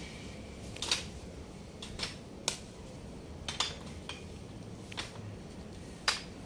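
A series of sharp, irregular clicks and clinks, about seven of them, the loudest near the end, over a steady low background hum.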